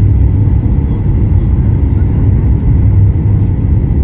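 Airliner cabin noise: a loud, steady low rumble of engines and airflow, with a faint steady whine above it.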